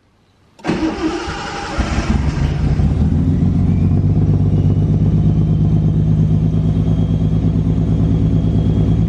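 Datsun turbo L28E straight-six cranking and catching about two seconds in, then running steadily with a fast, even low pulse. It is running on a newly fitted Haltech 550 ECU whose idle and timing are still being dialled in.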